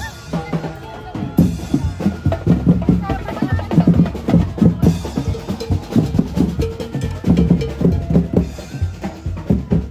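Drums, with bass drum and snare, playing a quick, steady beat.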